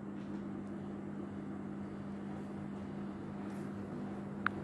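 A steady low mechanical hum with a faint hiss. Near the end a single short metallic clink sounds as a steel ladle touches the aluminium pot.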